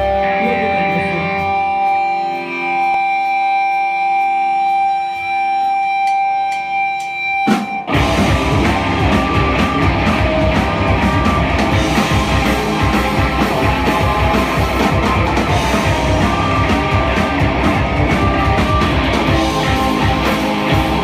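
Live rock band playing. A sparse intro of held notes gives way about eight seconds in to the full band crashing in with drums, electric guitars and bass guitar.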